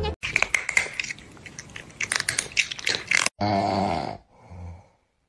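Crunchy chewing, with irregular loud crunches for about three seconds. It is followed by a short low vocal sound, about a second long.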